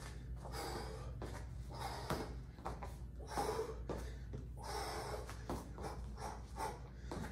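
A man breathing hard during shadow kickboxing, with short, sharp exhales puffed out irregularly in time with his kicks and punches.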